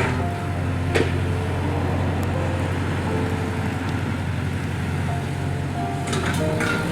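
Hydraulic excavator's diesel engine running steadily, with a sharp knock about a second in and a burst of cracking near the end, under background music with a simple melody.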